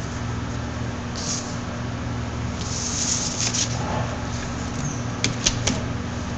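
Steady low hum with hiss, and a few sharp clicks about five seconds in.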